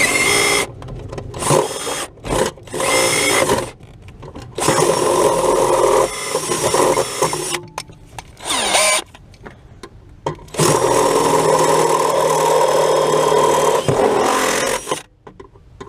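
Power drill with a hole saw cutting to enlarge the clutch master cylinder hole in a car's firewall, run in several bursts with short pauses, the longest lasting about four seconds near the end; one burst winds down in pitch as the drill slows.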